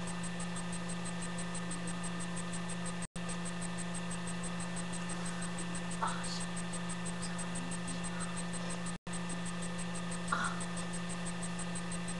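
Steady electrical hum with a light hiss, cutting out completely for an instant twice, about 3 and 9 seconds in, with a few faint soft clicks.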